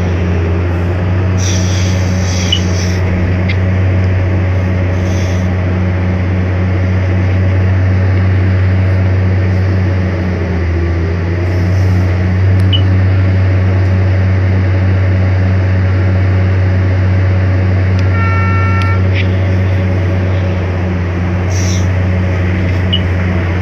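Excavator's diesel engine heard from the cab, running with a steady low hum as the machine works. A short horn-like tone sounds once, about three-quarters of the way through.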